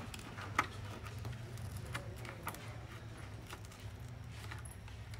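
A few faint clicks and light scraping from a smartphone's housing being worked open with a thin prying card, over a steady low hum.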